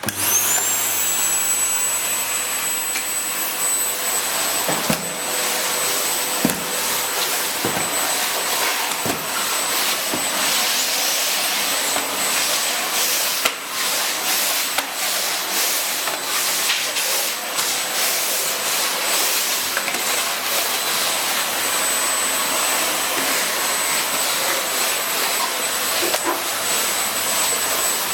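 Ariete 2788 Eco Power bagless vacuum cleaner switched on: the motor spins up with a quickly rising whine, then runs steadily with a high-pitched whine over a loud rush of air, with a few brief knocks along the way.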